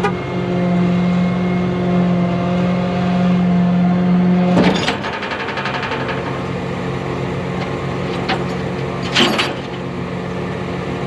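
Tow truck's engine running with a steady drone. About halfway through, a loud clunk comes and the engine note drops lower, and a second short bang follows near the end.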